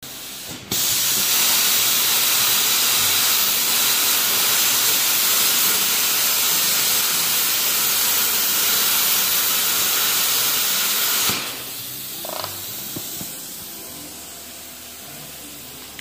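Plasma cutter cutting steel: a loud, steady hiss that starts abruptly about a second in and cuts off after about ten seconds, leaving a quieter hiss of air.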